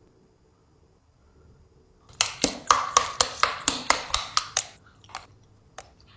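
Crisp, close-up crunching as a chunk of spicy chocolate is bitten and chewed. After a couple of quiet seconds comes a quick run of about a dozen sharp crunches, then a few scattered softer ones.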